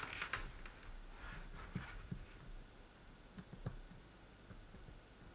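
Faint scattered clicks and taps of small handling: a multimeter and its test probes being put to diodes on a circuit board, with more clicks in the first couple of seconds.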